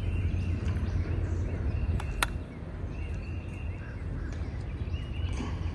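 Birds chirping in short repeated calls over a steady low rumble, with one sharp click a little after two seconds in.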